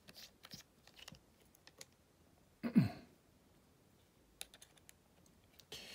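Small, light clicks and ticks of a pentalobe screwdriver turning out the bottom screws of an iPhone 8 Plus, and of the tiny screws and driver being handled. A brief, louder falling sound comes about three seconds in.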